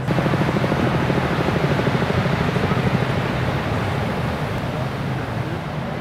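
A loud motor running with a fast pulsing beat. It starts abruptly, is strongest over the first three seconds, then eases off.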